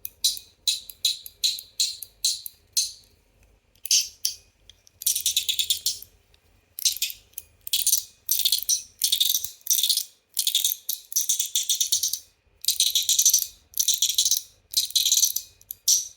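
Ball rattling and rolling along the track of a stonewashed titanium CHENYU Syntony fidget as it is worked back and forth: short, bright rattles about twice a second at first, then longer runs of about a second each from about five seconds in.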